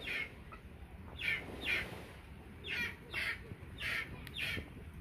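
A bird calling repeatedly in short calls, mostly in pairs, about every second and a half.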